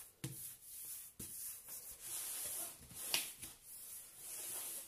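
Hands rubbing and sliding over the plastic protective film of a diamond-painting canvas, a soft rustle with a few light knocks, the sharpest about three seconds in.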